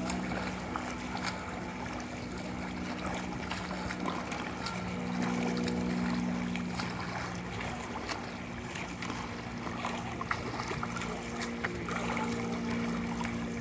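Freestyle swimmer's arm strokes and kicks splashing the pool water, a run of short irregular splashes over a steady low hum.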